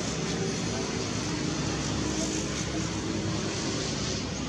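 Steady background rumble and hiss of distant motor traffic.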